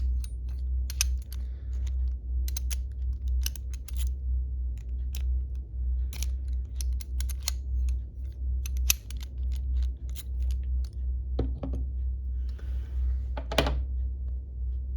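Irregular small clicks and taps of a padlock and its key being handled, with a couple of louder clacks near the end, over a steady low hum.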